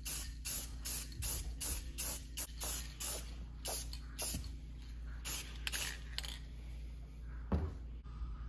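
Aerosol can of Dupli-Color 1K clear coat spraying in short, rapid hisses, about three a second, that thin out after about three seconds and stop a little past six seconds in. A single thump comes near the end, over a steady low hum.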